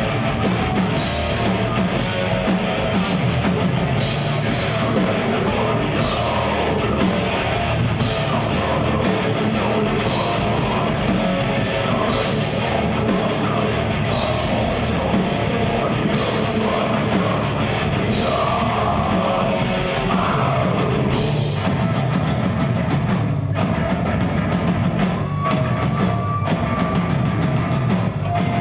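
A progressive death metal band playing live, with distorted guitars, bass and fast drumming running without a break.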